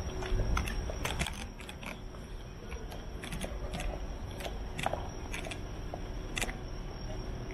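Outdoor town ambience at night: a low steady rumble with a faint high steady hum over it, and scattered sharp clicks and ticks in small clusters.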